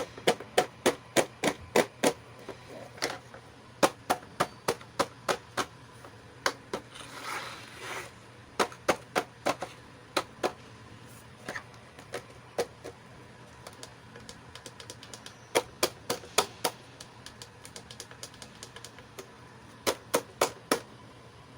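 Sharp clicks and taps of small plastic toy pieces being handled, in quick runs of several a second with pauses between, and a brief rustle about seven seconds in.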